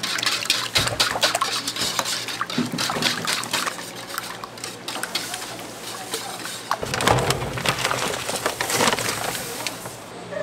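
Irregular clicking and scraping of kitchen utensils, with liquid sloshing and pouring.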